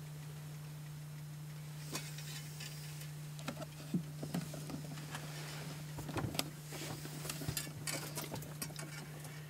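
Scattered clicks and light knocks over a steady low hum, the knocks coming most thickly in the second half: handling noise from someone moving with the camera in a cramped space.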